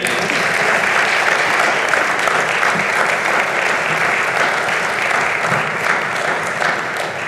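Church congregation applauding steadily at the end of a sung performance.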